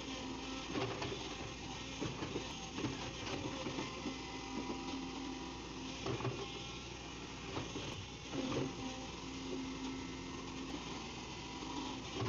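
Excavator's diesel engine running steadily, with a mechanical clatter and intermittent sharp clicks.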